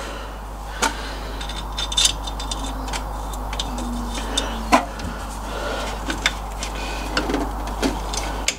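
Steel nuts clicking and tapping against the rear axle U-bolts and spring plate as they are started by hand on the U-bolt threads, in scattered light metallic ticks with an occasional brief ring.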